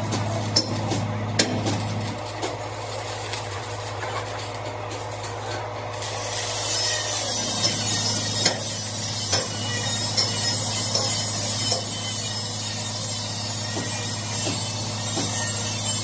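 Stick-welding arc crackling and sputtering with scattered pops as an electrode is run along the steel of an excavator bucket, over a steady low hum. The crackle grows denser about six seconds in.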